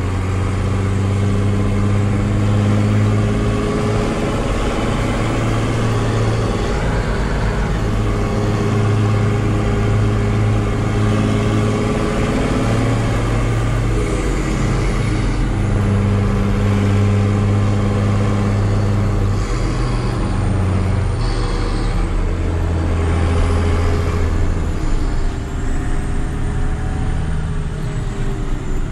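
Straight-piped six-cylinder diesel of a Massey Ferguson 6180 tractor running, heard from inside the cab as a steady low drone. Its pitch shifts a few times and drops near the end.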